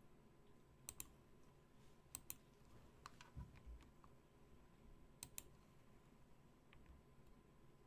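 Near-silent room with a few faint clicks, mostly in quick pairs, from someone working a computer.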